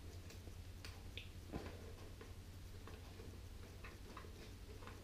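Faint, scattered ticks and taps of boxboard pieces being handled while sellotape is pressed onto a cardboard corner joint, over a steady low hum.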